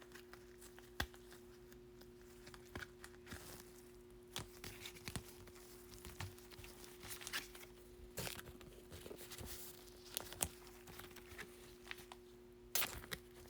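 Foil wrapper of a Bowman baseball card pack being torn and crinkled, with faint scattered rustles and clicks as the cards are handled. A faint steady hum runs underneath.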